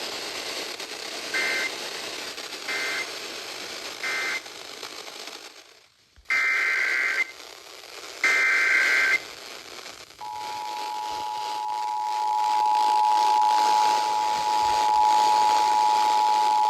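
Emergency Alert System tones. Three short warbling SAME data bursts mark the end of one alert, then a brief silence, then two longer SAME header bursts start the next alert. About ten seconds in, the steady two-tone EAS attention signal begins and holds.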